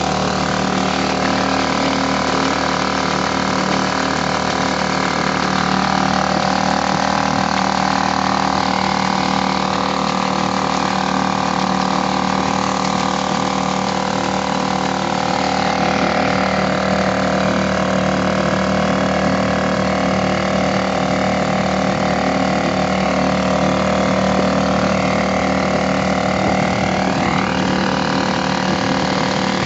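Suzuki 2.5 hp four-stroke outboard motor running steadily under way, its pitch shifting slightly a few times.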